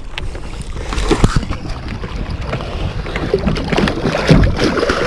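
Water sloshing and gurgling around a fishing kayak, mixed with many short knocks and clatters from gear being handled on board.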